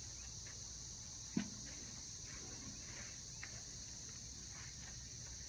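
Steady, high-pitched insect chorus droning throughout, with faint scratchy rustles and a single sharp knock about one and a half seconds in.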